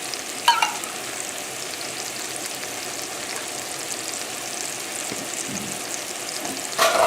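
Shrimp sizzling steadily in a hot frying pan, with a short louder sound about half a second in and another near the end.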